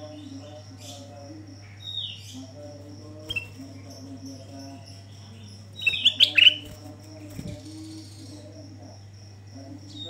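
Ruby-throated bulbul (kutilang emas) giving short falling whistled calls: single notes about two and three seconds in, then a loud cluster of calls about six seconds in. A steady high pulsing trill and a low hum run underneath.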